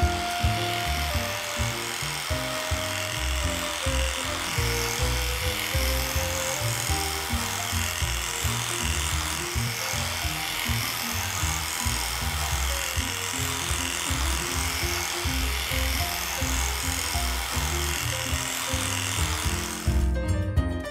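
Background music over the steady buzz of a cordless electric dog clipper shaving through matted fur; the clipper buzz cuts off near the end, leaving the music.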